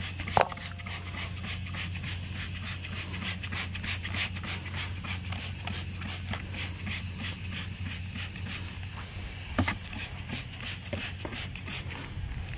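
A pressure washer's engine running steadily, a low hum with a thin high whine over it. Footsteps on grass and camera-handling knocks come and go throughout, with a sharper knock about half a second in and another near ten seconds.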